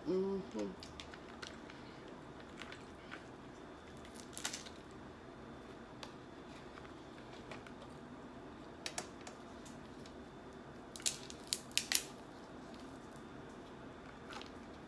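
Snow crab legs snapped and their shells cracked by hand: scattered sharp cracks, with a quick cluster of several about eleven to twelve seconds in, and faint shell handling between them.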